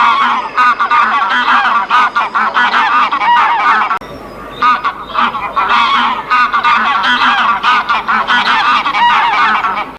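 Many birds of a flock calling at once, their calls overlapping densely, with a brief lull about four seconds in.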